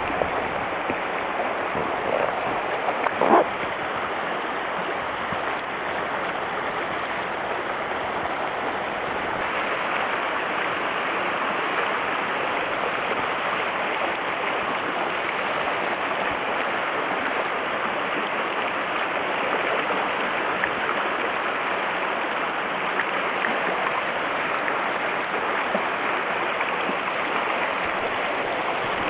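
River water rushing steadily over shallow riffles, an even, continuous rush. A brief knock about three seconds in stands out as the loudest moment.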